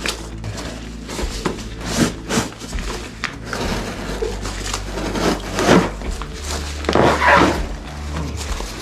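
Cardboard shipping box and its packing material being handled and pulled apart while unpacking, with irregular rustles and knocks, loudest around the middle and near the end.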